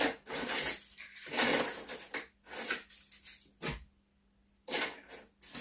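Irregular rustling and light clatter of small nail-art supplies being handled and sorted on a desk, with a short knock about three and a half seconds in.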